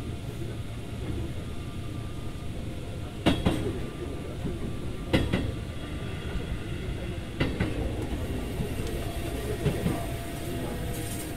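Keikyu 2000-series electric train running, heard from inside the car: a steady low rumble of wheels on rail, with three sharp clacks over rail joints about two seconds apart in the middle.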